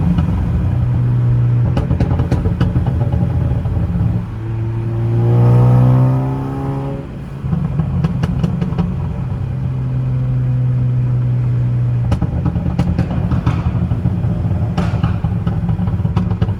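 2014 Ford Focus ST's turbocharged 2.0-litre four-cylinder running under way, revving up with a rising pitch about four seconds in and dropping back near seven seconds. Sharp crackles and pops come at several points, from its Stratified pops-and-crackles tune.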